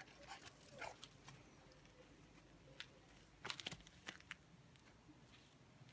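Faint, scattered scraping and crunching of dry, stony dirt as a puppy's paws dig. There are a few scratches in the first second and a short cluster a little past the halfway point.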